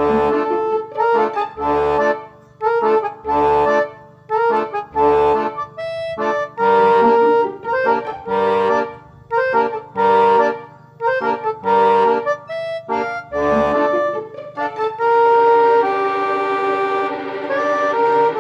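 Background music: a melody of short notes played in a rhythm, with low bass notes now and then, moving into a held chord near the end.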